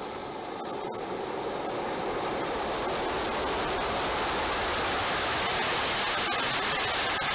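Small turbojet engine spooling up: a high whine climbs steeply in pitch over the rush of the jet, which grows louder for the first few seconds and then holds steady as the engine nears about 96,000 rpm.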